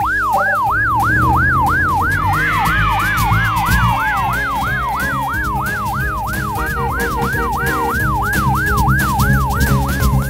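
Cartoon ambulance siren of the medical train, a fast yelp that sweeps up and down about four times a second without a break.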